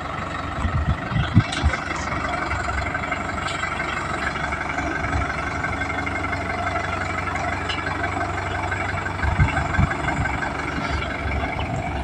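Indo Farm tractor's diesel engine running steadily while it works its front loader, with a few short low knocks about a second in and again near the end.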